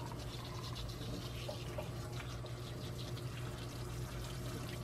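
Kitchen sink pull-down sprayer running steadily, its water hissing onto a soapy kitten and splashing into a stainless steel sink, with a steady low hum underneath.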